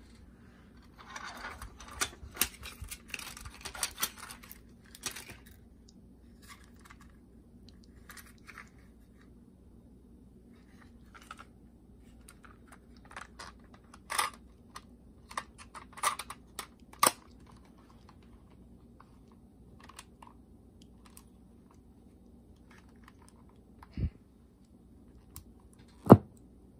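Hands handling a Panasonic RX-SA73 cassette Walkman: plastic rustling and small clicks over the first few seconds, then a series of separate sharp clicks as its buttons are pressed, the loudest click near the end.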